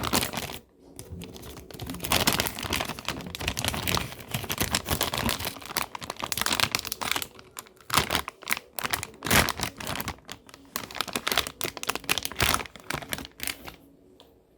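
Plastic packaging crinkling and rustling, mixed with irregular clicks and taps from handling, dying away near the end.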